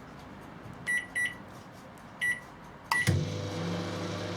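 Microwave oven keypad beeping four times as it is set and started, then the oven starts running about three seconds in with a steady low hum.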